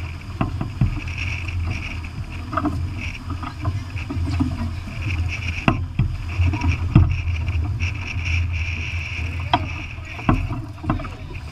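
Wind rushing over the microphone and water surging along the hull of a heeled sailboat under way, with a hiss that comes and goes. Sharp snaps and knocks are scattered through it, the loudest a little past the middle, as the headsail luffs and flaps.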